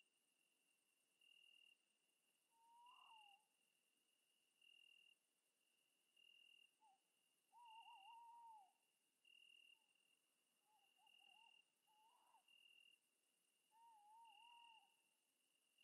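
Faint night ambience: an insect chirping in an even pulse about every second and a half, and a night bird giving short wavering, warbling calls several times.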